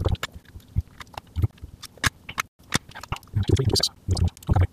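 Handling noise from a drum machine's circuit board being lifted and moved on a workbench: irregular clicks and rustles, with a cluster of louder knocks and scuffs near the end.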